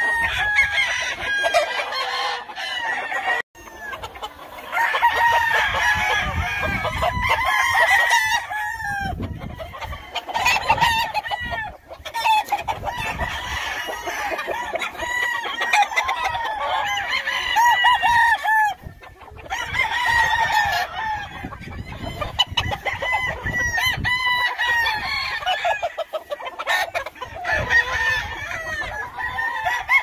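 Many gamefowl roosters crowing over and over from nearby pens, their calls overlapping one another, with clucking in between.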